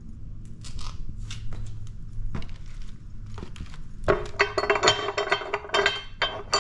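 A few light knocks, then from about four seconds in the hinged steel fulcrum plates of a pallet buster tool clink and ring again and again as they are flipped by hand.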